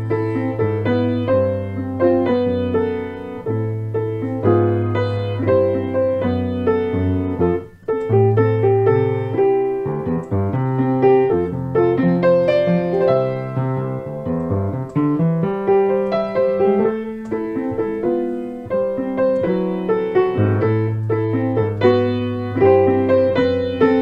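Solo piano playing a flowing piece: held bass notes under chords and a melody in the middle range, with a brief break about eight seconds in.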